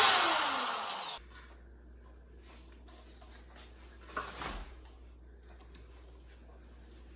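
Corded electric drill against a hard wall, its motor whine falling in pitch and fading over about a second as it spins down, then cutting off suddenly. After that only faint room sound, with a short clatter about four seconds in.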